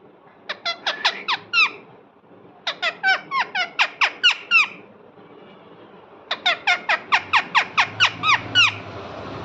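Parrot calling in three quick bursts of rapid, shrill repeated squawks, seven to eleven notes in each burst. A steady rushing noise comes in near the end.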